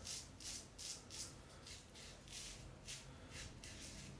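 Faint, quick rubbing strokes, about two or three a second, from wet shaving.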